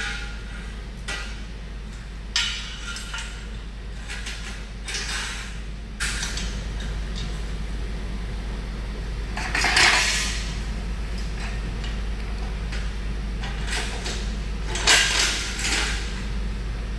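Metal telescopic tubing of a door drying cart being slid into its sockets and handled, making scattered metal clinks and knocks, with a longer scraping clatter about ten seconds in and another cluster of clanks around fifteen seconds.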